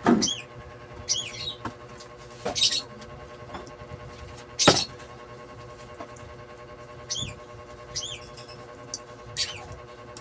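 Copper winding wire being pulled through the slots of an alternator stator by hand during a rewind: three short rasping pulls, the loudest about halfway through, and several short high chirping squeaks.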